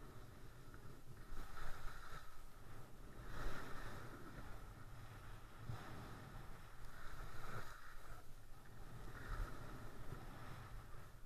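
Edges carving turns on packed piste snow: a scraping hiss that swells and fades every second or two with each turn, over wind on the microphone.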